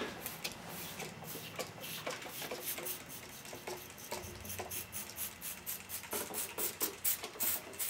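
A trigger spray bottle squirting RuGlyde tire-mounting lubricant again and again onto a motorcycle tire's bead at the rim edge: a quick series of short hissing spritzes, two or three a second. The lubricant is sprayed on to help break a stuck bead loose.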